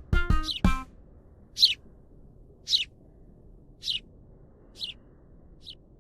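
A few quick plucked notes end a short music jingle. A high, bird-like chirp then repeats about five times, roughly a second apart, each fainter than the one before.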